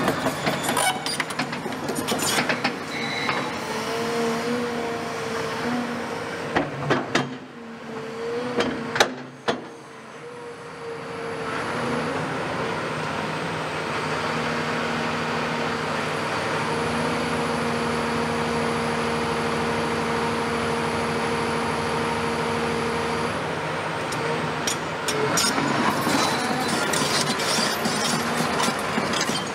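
Caterpillar 340F tracked excavator running with its Cat C9.3 diesel and hydraulics as it swings and moves on steel tracks. A few sharp knocks and clanks come about a third of the way in; then comes a steady engine-and-hydraulic noise with a held whine, and more clattering of the tracks near the end.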